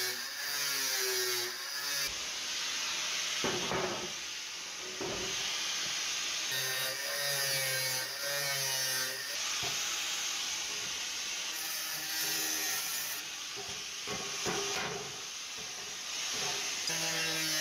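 Angle grinder with a thin cut-off disc cutting through sheet steel. The motor's whine wavers and dips as the disc bites and is eased off, over a steady hiss of the cut.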